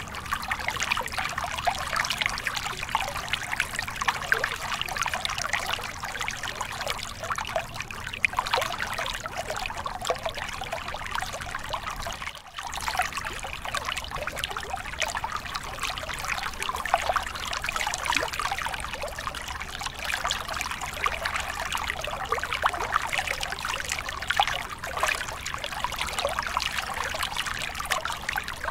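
Mountain stream splashing and trickling down a small rocky cascade into a pool: a steady rush with constant fine bubbling and splashing. The level dips for a moment about twelve seconds in.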